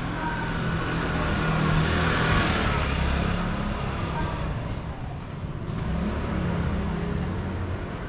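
A motor scooter passing close by in a narrow alley. Its sound swells to a peak about two and a half seconds in and then fades away.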